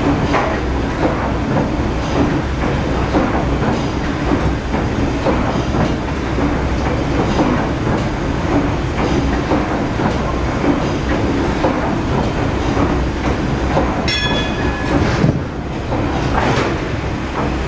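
PS Waverley's 1946 Rankin & Blackmore triple-expansion steam engine running steadily, its cranks and valve gear turning with a dense mechanical clatter. A short high tone sounds once, about fourteen seconds in.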